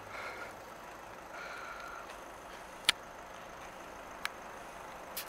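Steady background noise of distant traffic, with one sharp click about three seconds in and a fainter click a little over a second later.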